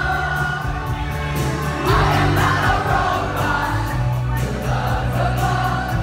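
Live pop concert music heard from inside the audience: a band with a steady beat and held bass notes under sung vocals.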